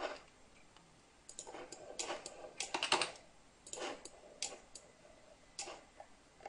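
Irregular clicks and taps from a computer keyboard and mouse, a few per second with uneven gaps.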